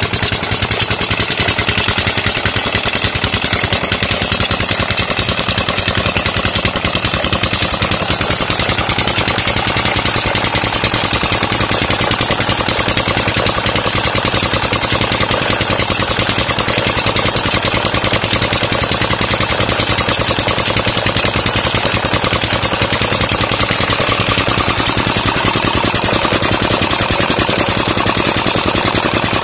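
Old Petter diesel engine running at a steady speed, belt-driving a tube-well pump, with a fast, even knocking beat from its firing strokes.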